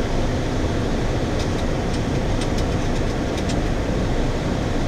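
Steady flight-deck noise of a Boeing 737-400 on final approach, gear down and flaps set: a constant rush of air over the cockpit with a low engine rumble underneath.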